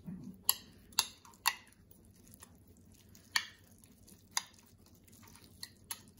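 A metal utensil clinking against a small glass bowl while stirring a chimichurri sauce. Three sharp clinks come about half a second apart in the first second and a half, two more follow a second apart later, and a couple of faint taps come near the end.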